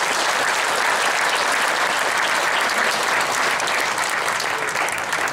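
Audience clapping steadily, a dense even patter of many hands.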